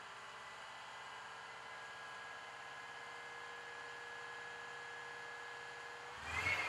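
Heavy diesel truck idling: a steady low hum with a faint held whine. About six seconds in there is a brief, louder rush.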